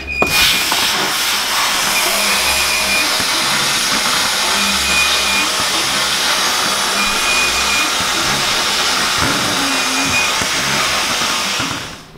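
Vapour blasting cabinet running: a loud, steady hiss of compressed air and water slurry blasting inside the cabinet. It starts as the blast is switched on and cuts off near the end.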